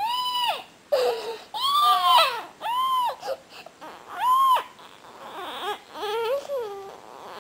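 A child crying inconsolably in a string of about six high-pitched wails, each roughly half a second long and rising then falling in pitch, with short gaps for breath. Toward the end the cries drop lower and waver.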